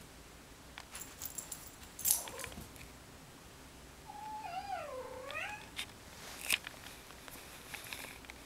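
Orange tabby kitten meowing once, a drawn-out call of about a second and a half that dips in pitch and rises again. Short rustles and sharp clicks come around it, the loudest about two seconds in.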